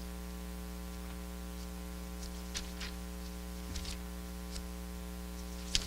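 Steady electrical hum in a quiet room, with a handful of faint, brief ticks scattered through the second half.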